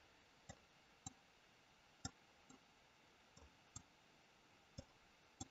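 Computer mouse left button clicking faintly about six times at uneven intervals, the clicks of strokes with Blender's hair comb brush.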